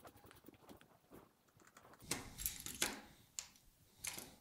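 Faint clicks and light rattles of a small plastic gate remote being handled, with a denser patch of clicking about two seconds in. Near the end, a click as a button on the remote is pressed to test it after the battery change.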